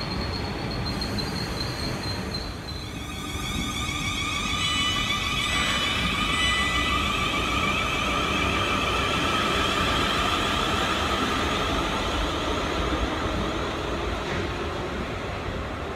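South West Trains Class 444 Desiro electric multiple unit pulling away, its traction motors setting up a whine of several tones that climbs slowly as it gathers speed, over the steady rumble of wheels on rail. A high steady tone sounds before the whine and stops about two and a half seconds in.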